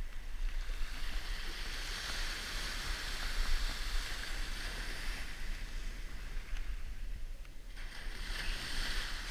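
Small ocean waves breaking and washing up the beach in two swells, one through the first half and another near the end, over a steady low rumble.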